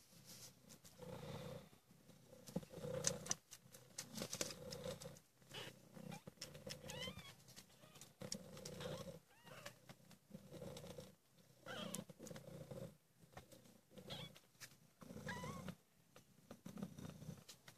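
Maine Coon mother cat purring softly in even pulses about every second and a half, with faint high squeaks from her newborn kittens as they nurse.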